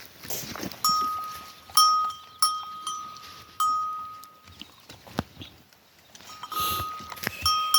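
Repeated metallic ringing: about seven strikes, each leaving a clear bell-like tone that fades within a second.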